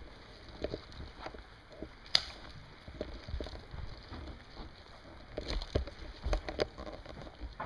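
Scattered light clicks and knocks over a low rumble of handling noise, with one sharp click about two seconds in and a cluster of knocks near the end.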